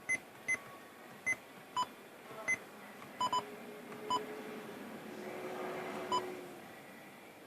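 Kenwood head unit sounding its short key-press beeps as the steering-wheel control buttons are pressed: about nine brief beeps, some higher and some lower in pitch, including a quick double beep.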